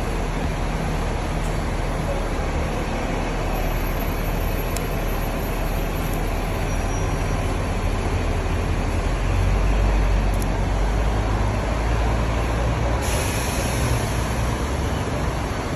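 Double-decker bus engine idling with a steady low rumble that swells around ten seconds in. About thirteen seconds in, a high hiss of air starts suddenly and keeps going.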